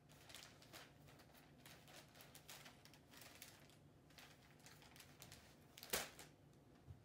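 Faint rustling and crinkling of wrapping paper being handled and folded around a gift, with one louder, sharper crackle about six seconds in.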